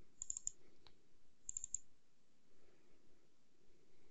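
Computer mouse double-clicking: two quick bursts of clicks about a second apart, with a single click between them.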